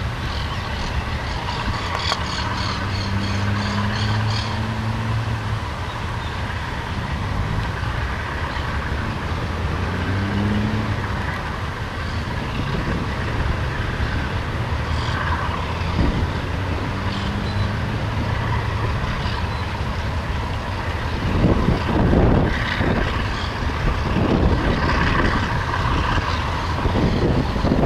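ALCo RSD16 diesel-electric locomotive's engine running under load as it pulls a freight train away from a station, a steady low hum that grows somewhat louder as the train approaches.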